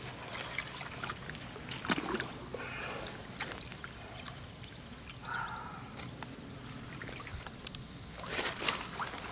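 Water splashing and trickling, with scattered light clicks and knocks and a short flurry of louder splashing near the end.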